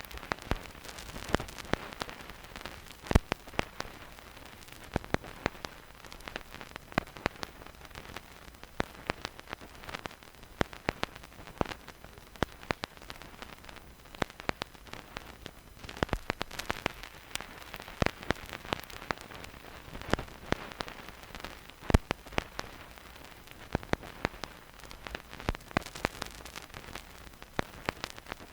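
Vinyl record surface noise with no music: the stylus riding the groove gives a soft steady hiss, scattered with irregular crackles and pops, a few of them much sharper than the rest.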